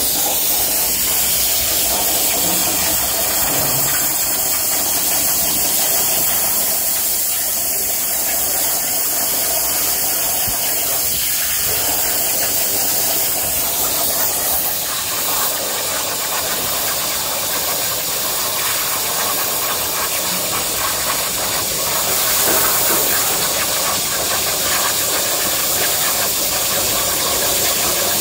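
CNC gantry cutting machine's torch cutting through steel plate, giving a steady hiss.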